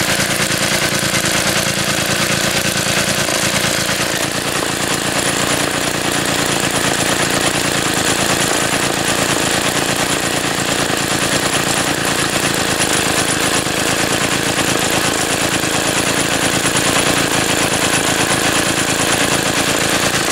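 Three-horsepower Tecumseh single-cylinder snowblower engine idling low with a steady, rapid firing rhythm, throttled down to near its lowest idle.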